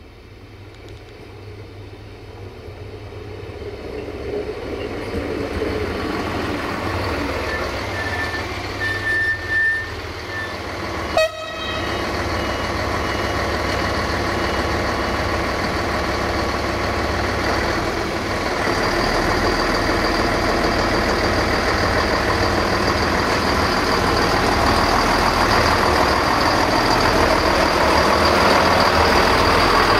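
Diesel multiple unit approaching and growing louder, sounding short horn toots about eight to ten seconds in, followed by a brief knock. Then its diesel engine and running gear sound loud and steady as the railcar draws up alongside.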